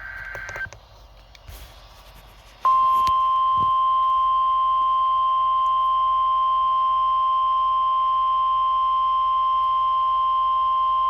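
A short burst of EAS SAME header data tones ends. About two and a half seconds later a single steady, loud 1050 Hz alert tone starts and holds unchanged for about nine seconds. It is the warning alarm tone that opens a National Weather Service test alert.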